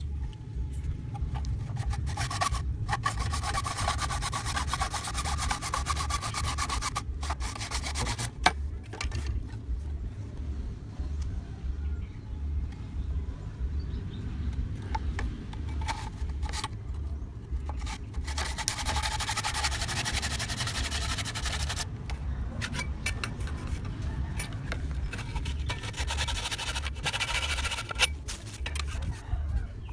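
Hacksaw blade sawing through PVC pipe, scraping back and forth in stretches with short pauses, cutting a slot along the pipe.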